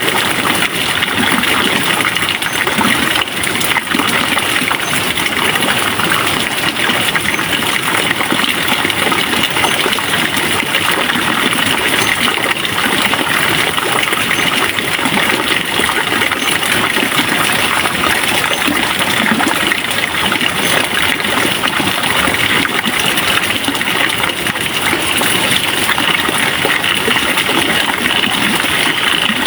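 Steady loud rush of flowing water, an unbroken hiss with no pauses.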